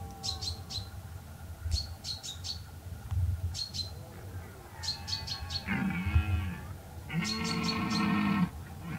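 Red deer stag roaring in the rut: a short roar that bends in pitch about six seconds in, then a longer, steady roar held for over a second. Small birds chirp in quick clusters throughout.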